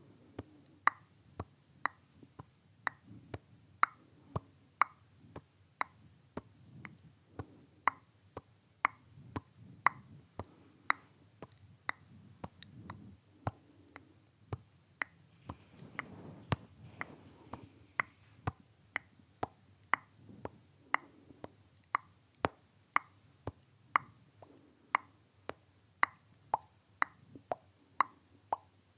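Mouth pops made close to the microphone: a steady string of short pops at about two a second, each with a brief pitched ring.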